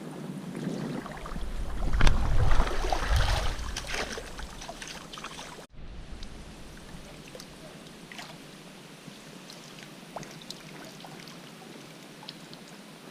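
River water running, with a louder stretch of splashing and low rumble in the first half that cuts off suddenly, followed by quieter steady flow with small ticks and splashes.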